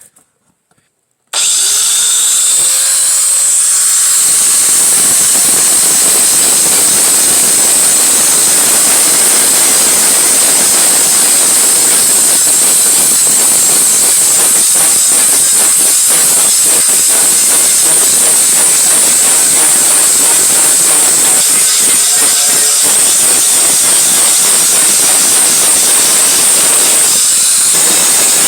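Angle grinder with a flap disc switched on about a second in and running steadily, grinding a sheet-metal edge, with a high whine over the grinding noise.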